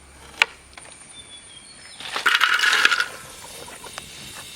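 Crab being tossed and mixed with salt: a rattling, crunching clatter lasting about a second, after a single sharp click near the start.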